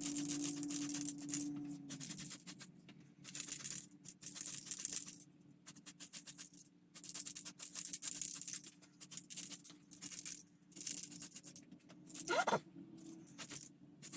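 Short, irregular hisses of paint being sprayed onto model parts, stopping and starting every second or so.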